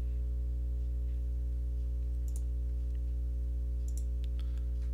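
A few computer mouse clicks, one about two seconds in and a small cluster near the end, over a steady low hum.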